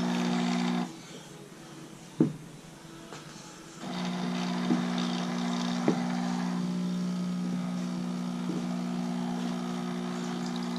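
DeLonghi Dedica espresso machine's vibratory pump humming while it pulls a double shot. It stops about a second in, a click sounds in the pause, then it starts again about four seconds in and runs steadily.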